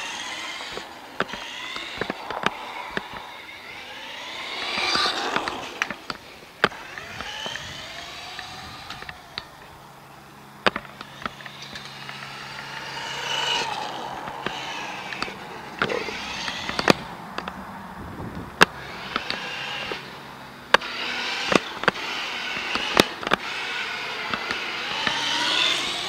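Radio-controlled car's 15-turn 540 brushed electric motor whining as it repeatedly speeds up and slows down, the pitch rising and falling, with sharp clicks and knocks scattered throughout.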